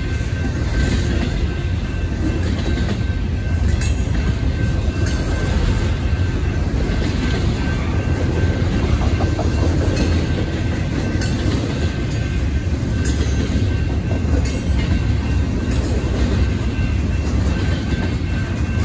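Double-stack intermodal freight train rolling steadily past: a low, continuous rumble of the well cars with irregular wheel clicks over the rails.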